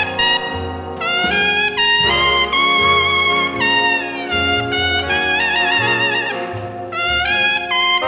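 Swing-era jazz ballad recording: a lead trumpet plays the melody with quick runs up to high notes and a falling smear, backed by a small band with trombone, saxophones and a walking bass.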